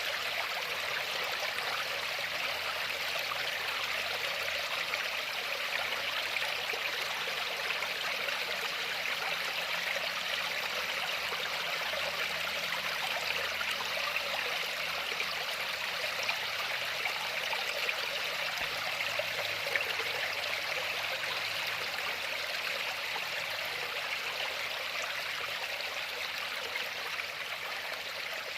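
Flowing stream: a steady, even rush of running water with trickling.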